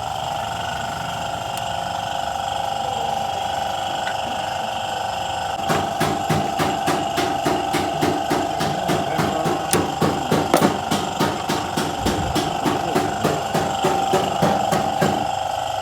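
A run of sharp metallic clicks or knocks, about three a second, starts about six seconds in and lasts nearly ten seconds: hand tools working a metal engine part back into place. A steady hum runs underneath throughout.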